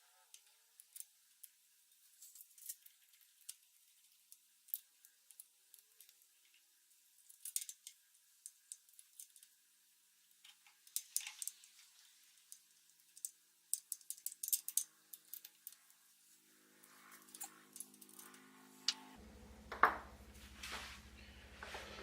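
Light metallic clicks and clinks of small metal parts and tools being handled. From about fifteen seconds in, the low drone of a low-flying aircraft fades in and grows louder toward the end.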